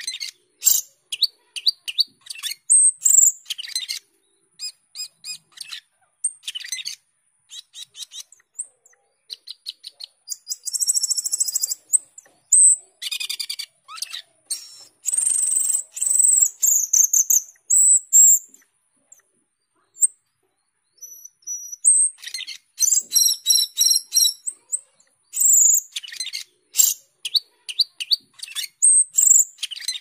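Asian glossy starling (cucak keling) singing non-stop: a long run of sharp, high-pitched chirps, whistles and buzzy rattles, with brief gaps and a fast run of repeated notes about three quarters of the way through.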